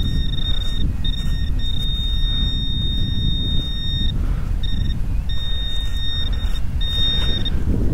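Handheld metal-detecting pinpointer sounding a steady high-pitched tone that breaks off and comes back several times as the probe is moved over a target in the sand, over a low rumble of wind on the microphone.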